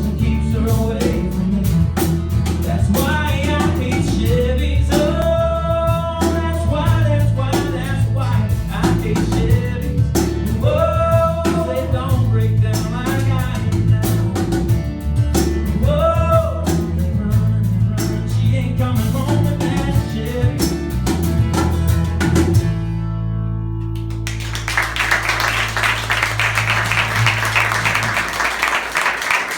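A male singer with guitar finishing a country song. The singing stops about three quarters of the way through, the last chord rings on, and an audience breaks into applause.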